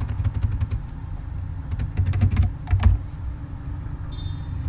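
Typing on a computer keyboard: two quick bursts of keystrokes, one at the start and one about two seconds in, over a low steady hum.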